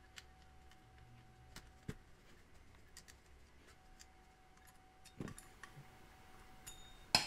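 Scattered light clicks and taps of small parts and a hex driver as a wheel is fitted onto an RC buggy's 5 mm D-shaft rear axle, with a sharper click near the end.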